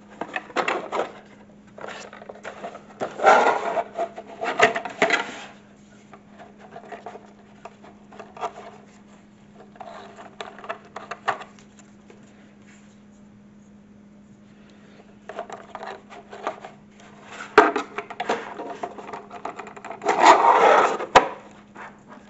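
A small storage box for miniatures being handled by hand: bursts of rubbing and scraping as it is opened and closed on a tabletop, with a few sharp knocks. A steady low hum runs underneath.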